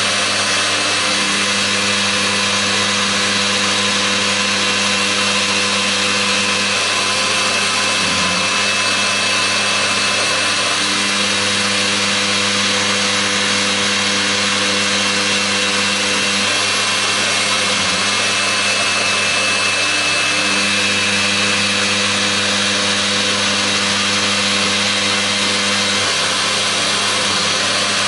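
EMCO E-25-TCM CNC lathe's driven live tool, a small end mill, spinning and cutting the chucked part in C-axis milling, a steady high whirr of machine noise. Under it a low hum comes in for three long stretches of several seconds each, with short breaks between.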